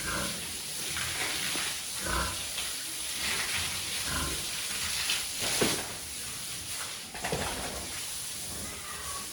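Animal calls: several short calls over a steady hiss, with one sharper, louder sound a little past halfway.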